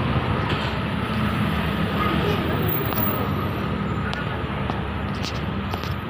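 Street traffic: the steady running of car and motorcycle engines on a city road.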